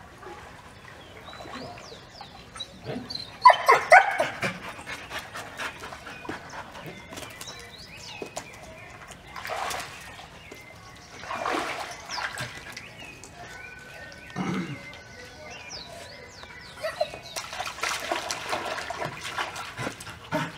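Belgian Malinois barking in scattered bursts, with some water splashing.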